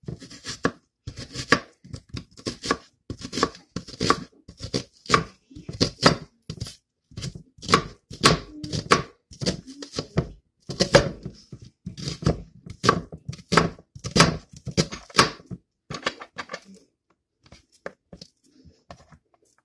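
Chef's knife chopping an onion on a plastic cutting board: a steady run of sharp strokes, a couple a second, thinning out to a few light taps near the end.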